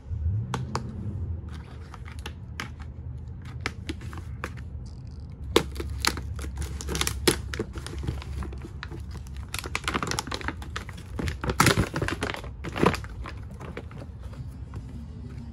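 Clear plastic bag and cardboard packaging crinkling and rustling as a new engine timing cover is pulled out of its box, a run of sharp crackles that is thickest in the middle.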